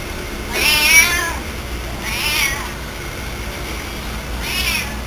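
A cat meowing three times, about a second and a half apart. Each meow rises then falls in pitch, and the first is the loudest.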